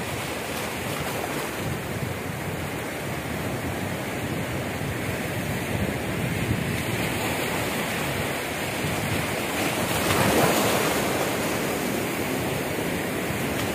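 Shallow surf washing in over a rocky, sandy shoreline, a steady rushing wash, with one wave surging in louder about ten seconds in.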